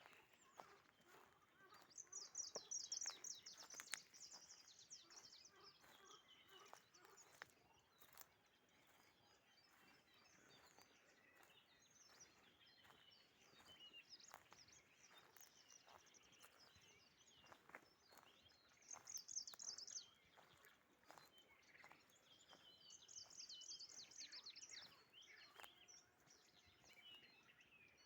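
Songbirds singing faintly: repeated high trills and chirps, with the loudest bursts of song a few seconds in, about two-thirds of the way through, and again shortly after.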